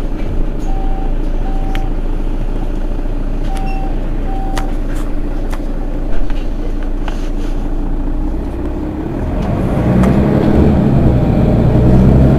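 Mercedes-Benz Citaro city bus's diesel engine idling steadily, with two pairs of short high beeps in the first few seconds and a single knock about six seconds in. About ten seconds in, the engine note grows louder and deeper.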